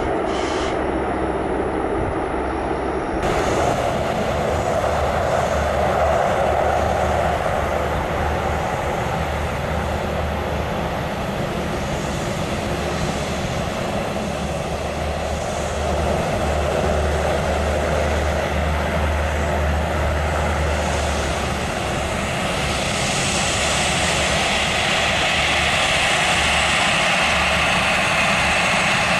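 Four-engine turboprop of a Lockheed Martin C-130 Hercules at takeoff power on its takeoff roll: a loud, steady drone of engines and propellers with a deep rumble underneath. In the last several seconds the sound turns higher and hissier.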